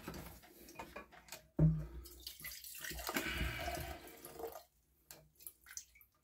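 A knock, then stale two-stroke petrol mix poured out of a petrol strimmer's fuel tank, trickling for about two seconds.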